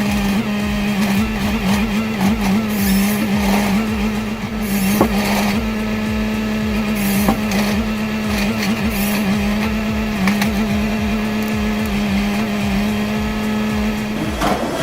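Heavy machinery running steadily: a constant, even hum with a rapid low throb underneath and a few scattered knocks.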